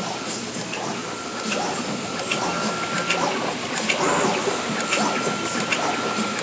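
Esko MultiCUT CNC router table cutting coroplast sign sheet: a steady mechanical clatter from the moving cutting head, with scattered sharp clicks and a thin high tone that drops out and returns partway through.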